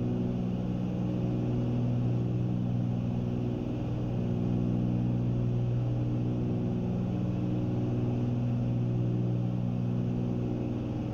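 Cessna 310's twin piston engines and propellers in flight, a steady low drone with a strong hum, heard from inside the cabin.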